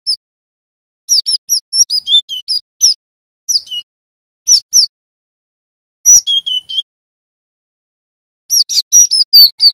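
Cinereous tit (glatik batu) calling in short quick runs of high, down-slurred whistled notes, with a harsher buzzing phrase about six seconds in.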